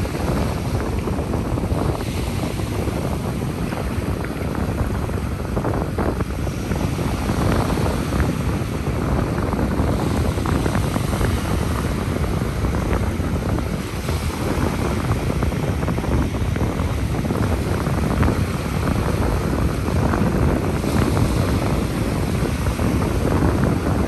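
Ocean surf washing onto a beach, a steady rush of waves, with wind buffeting the microphone.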